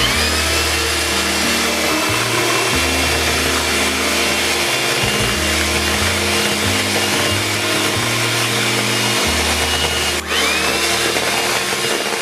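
Electric hand mixer running, its beaters whirring through butter, sugar and eggs in a stainless steel bowl as the cake batter is creamed. The motor's whine climbs as it starts, dips briefly about ten seconds in, then climbs back up.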